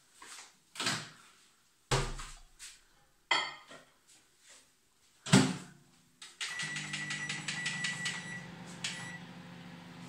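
Microwave oven being loaded and started: a few knocks, a loud clunk of the door shutting about five seconds in, then a series of beeps from the keypad and the oven's steady hum as it starts running, heating a covered bowl of frozen spinach and kale.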